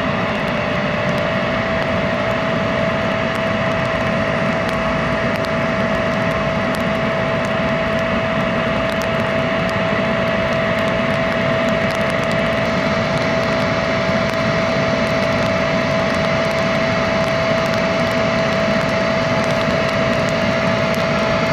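Embraer 170 with General Electric CF34 turbofan engines at taxi power: a steady jet whine with one strong held tone over a constant rushing noise.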